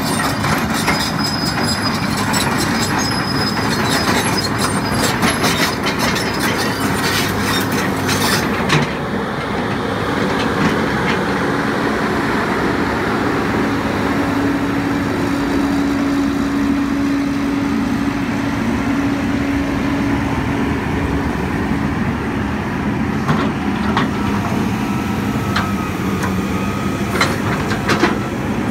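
2003 John Deere 330C LC crawler excavator running on its Deere diesel, with dense rapid metallic clanking and rattling for the first eight seconds or so. After that the engine runs on as a steady hum that is loudest around the middle, and a few sharp knocks come near the end as the bucket works the gravel.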